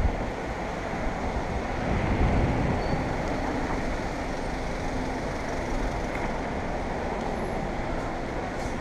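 Steady city street traffic noise with a low rumble, swelling briefly about two seconds in.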